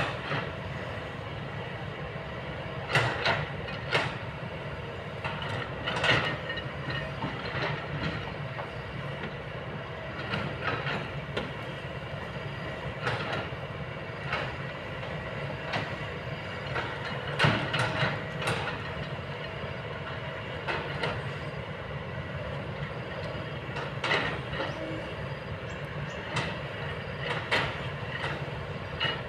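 Kobelco long-boom excavator working: its engine hums steadily while the bucket and boom give irregular clanks and knocks every few seconds.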